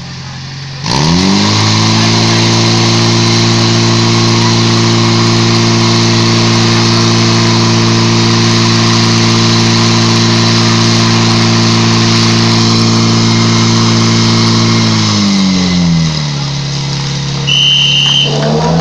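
Portable fire pump's engine revving up sharply about a second in and held at high, steady revs while it pumps water through the hoses to the jets. Near the end it drops back to a low idle.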